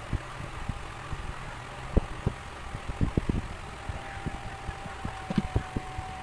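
Electric heat gun's fan running steadily, blowing hot air to soften PVC, with irregular low thumps of the plastic pieces being handled and pressed. A thin steady whine joins about four seconds in.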